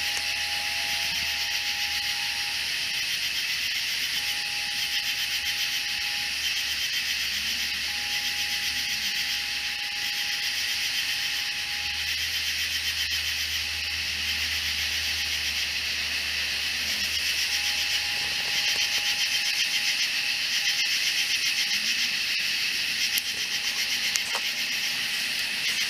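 Night chorus of katydids and cicadas: a steady, dense high-pitched shrilling with fast pulsing, a little louder in the last third.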